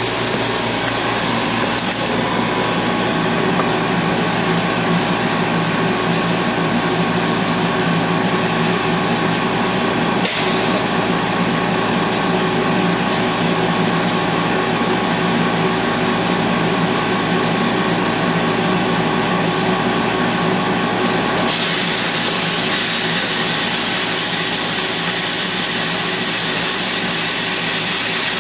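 A portable generator runs steadily under load while a plasma cutter burns through a steel hold-down bolt. The cutter's high hiss of air and arc is heard for the first couple of seconds, briefly in the middle, and again through the last quarter.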